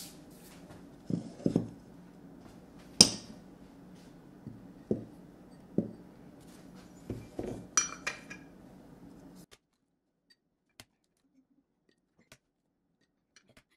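Eggs and small glass bowls being set down on a silicone-matted kitchen counter: scattered light knocks and a few sharp glass clinks, the sharpest about three seconds in. The clatter stops about two-thirds of the way through.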